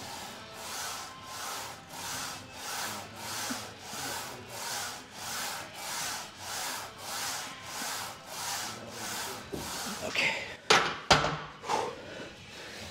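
Leg press sled sliding back and forth on its rails during a quick warm-up set, an even rubbing swish about twice a second. Near the end it stops and a few sharp metal clanks follow.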